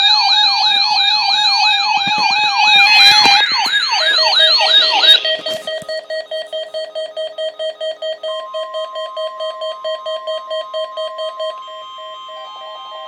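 Several electronic alert sirens warbling at once in fast, repeated downward sweeps for about five seconds, giving way to rapid beeping. About eight seconds in, the steady single-pitch NOAA Weather Radio warning alarm tone starts and holds, the signal that sets off weather alert receivers.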